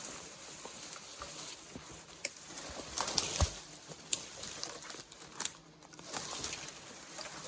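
Irregular cracks, knocks and rustles of branches and brush being handled, with no chainsaw running; the loudest is a heavy thump about three and a half seconds in.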